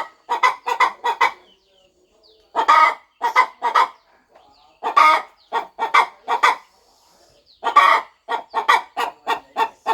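Hen clucking in repeated phrases about every two and a half seconds: each phrase opens with one longer note followed by three to five quick short clucks.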